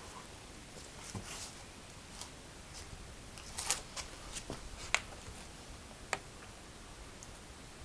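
Quiet handling noises: scattered small clicks, taps and rustles of craft pieces being handled, with the sharpest clicks about midway through and near the end.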